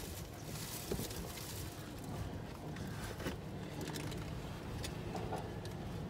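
Electric commuter train approaching and running through a railway level crossing, heard from inside a waiting car: a steady rumble that grows slightly louder, with scattered clicks.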